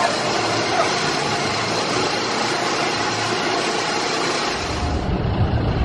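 Sky Wheel roller coaster train running up its steep steel track: a steady rushing rumble of wheels on rails. Near the end a deeper rumble comes in.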